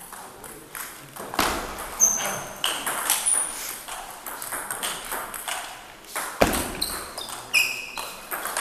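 Table tennis balls clicking off rackets and tables in an irregular patter, with two heavier knocks, one about a second and a half in and one about two-thirds through. A few short, high squeaks, typical of shoes on the court floor, come through between the hits.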